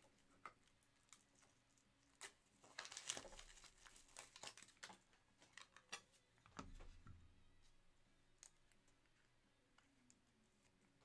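Faint rustling, crinkling and light clicks of trading cards and packaging being handled at a desk. The sounds are busiest in the first half and die down after about seven seconds.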